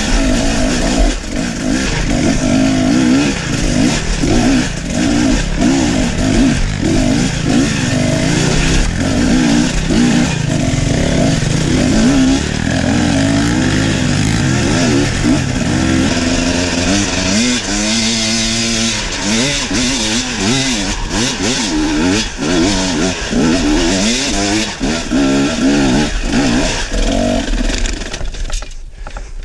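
Husaberg enduro motorcycle engine revving up and down under throttle as the bike climbs a rocky trail, with knocks and clatter from the chassis over the rocks. The engine sound drops away briefly right at the end.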